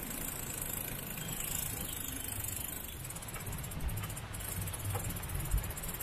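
Wind buffeting the microphone while riding a bicycle, an uneven low rumble over a steady rush of road noise.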